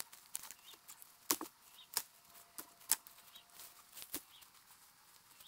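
Footsteps crunching through dry leaf litter and twigs on the forest floor: a few sharp crunches at uneven intervals, roughly a second apart.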